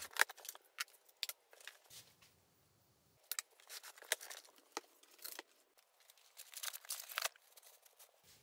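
Unpacking a cardboard carton: a plastic packing strap being pulled off with sharp clicks, cardboard flaps scraping open, then plastic wrap crinkling around the packed parts.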